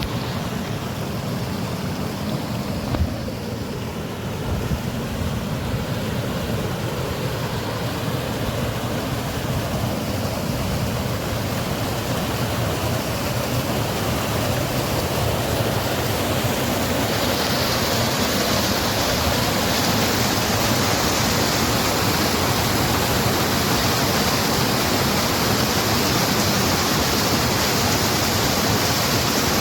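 Steady rush of water, an even hiss with no breaks, growing louder and brighter about halfway through.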